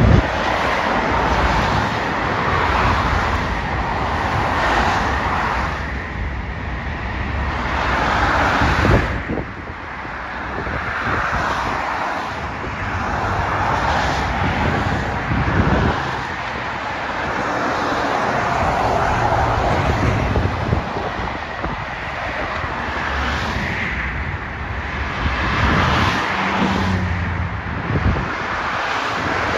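Road traffic on a busy multi-lane road: cars, vans and a lorry going by one after another, the noise swelling and fading as each passes.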